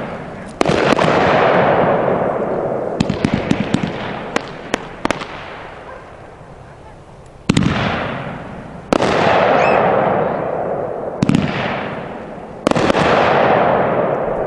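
Pyro Demon 'Vampira' 500-gram, 15-shot firework cake firing: shots thump out of the tubes and break overhead in three loud bursts, each trailing off in a long fading hiss. A spell of crackling comes a few seconds in.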